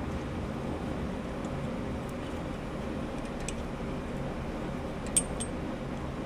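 Steady low background hum with a few faint metallic clicks of sway bar end-link hardware being fitted by hand, the sharpest a little after five seconds.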